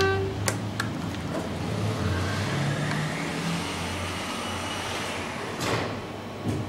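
Schindler hydraulic elevator starting a trip: two clicks, then the doors sliding shut and a steady low hum with a hiss as the car begins to travel down, with a short louder swell and a click near the end.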